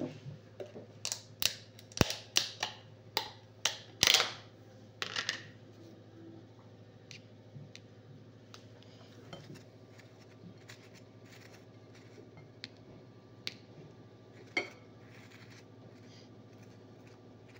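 Clicks and clinks of a plastic spread tub and tableware being handled, quick and sharp through the first five seconds or so. Then a knife spreads butter on a waffle, with only sparse faint ticks and one sharper click near the end.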